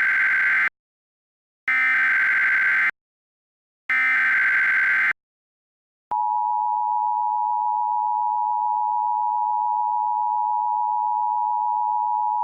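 Emergency Alert System tones: three short bursts of buzzing digital data tones, the SAME header, about two seconds apart, then after a second's gap, about six seconds in, the steady two-tone EAS attention signal starts and holds.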